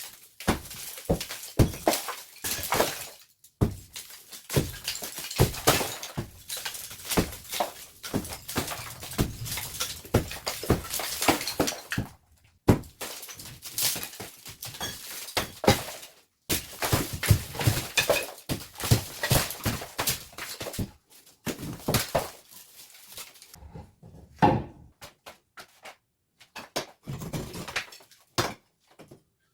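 Demolition work on an old house: many irregular knocks and cracks with debris crumbling and falling. The work pauses briefly twice and thins out to scattered hits near the end.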